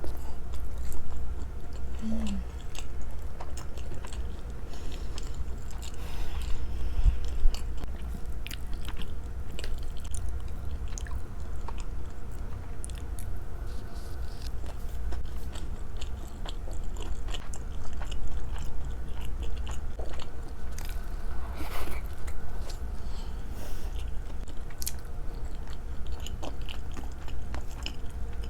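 Close-miked chewing and biting of food: many small wet mouth clicks scattered irregularly, over a steady low hum.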